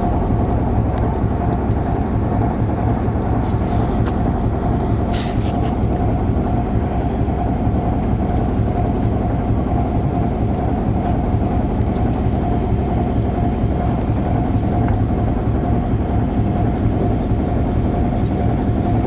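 A fishing boat's engine running steadily at a constant pace, a dense low drone with a steady whine over it, and a couple of brief clicks about three and five seconds in.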